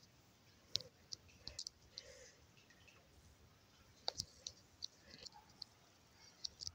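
Faint, irregular short clicks and ticks, about a dozen scattered through, over a quiet background; no bells are ringing.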